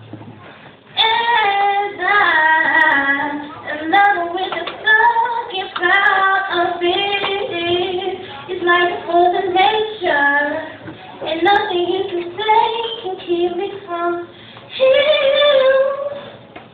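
A woman singing unaccompanied, with held notes and sliding runs and short breaths between phrases.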